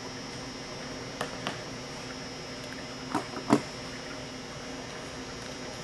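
A few light clicks and taps as a pen and a python egg are handled on a worktable: two small clicks about a second in, then a sharper knock and click a little past three seconds, the loudest of them. A steady hum runs underneath.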